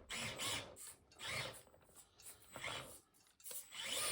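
Drivetrain of an SCX24 micro RC crawler with a 50-turn motor: the small motor and gears whine and whir in several short throttle bursts with pauses between, as the truck is worked free after hanging up on an obstacle.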